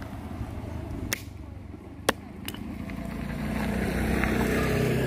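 A motor vehicle's engine hum that grows steadily louder from about halfway through. Earlier, a few sharp clicks.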